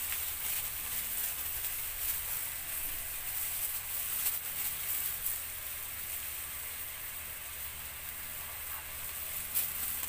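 Chopped garlic sizzling in bubbling caramelized sugar in a stainless steel wok: a steady hiss with a few small pops.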